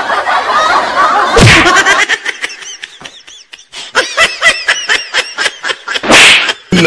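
High-pitched giggling laughter in quick pulses, broken by two short, loud noisy bursts: one about a second and a half in and one near the end.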